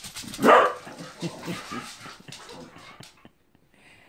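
A dog's loud bark about half a second in, then softer excited dog whimpering that fades.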